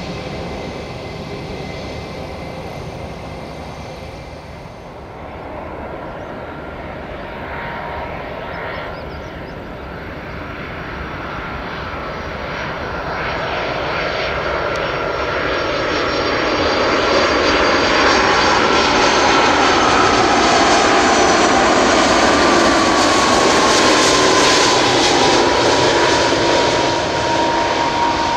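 Airbus A330 twin-jet airliner on landing approach, its engine noise growing steadily louder as it comes in. Near the end a high whine slides down in pitch as the jet passes.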